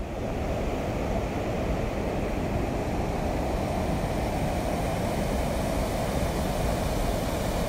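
Water pouring over a low dam spillway, a steady, even rush with no break.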